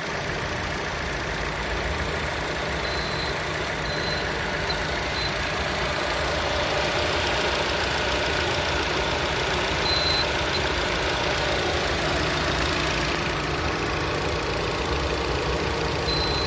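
Lada Vesta's H4M 1.6-litre four-cylinder engine idling steadily, with a short high-pitched whistle that comes and goes several times. The whistle comes from the alternator and timing-chain area, and its cause is unknown; the owner wonders whether it is the belt.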